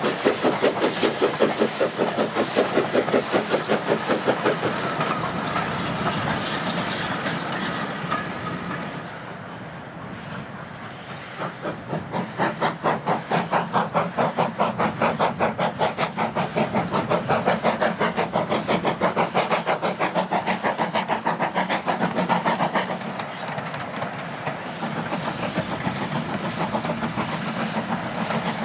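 Great Eastern Railway Class Y14 0-6-0 steam locomotive working a train, its exhaust beats coming in a quick steady rhythm of about four a second. The beats dip briefly about ten seconds in, then come back stronger.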